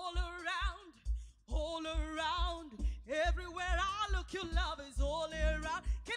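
Church praise-and-worship music: singing with a wavering vibrato over a band with a steady low beat, the voice coming in phrases with a short break about a second in.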